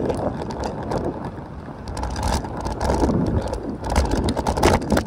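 Wind rumbling and buffeting on the microphone with road and traffic noise, recorded while riding a fixed-gear bicycle.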